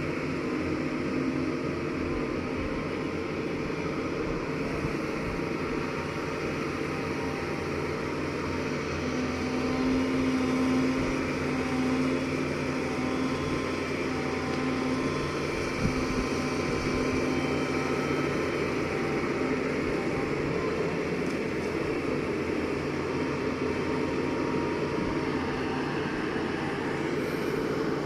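Diesel engine of a heavy earthmoving machine running steadily under work, its note rising and strengthening for a few seconds around ten seconds in.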